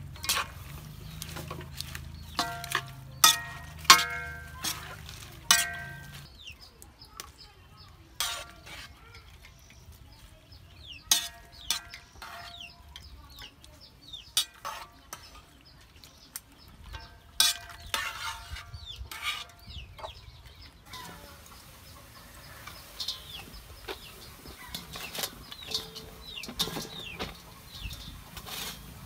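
Metal tongs clanking and scraping against a metal wok while stirring greens, each knock ringing briefly, in irregular bunches. Chickens cluck and peep throughout, and a steady hiss sets in about two-thirds of the way through.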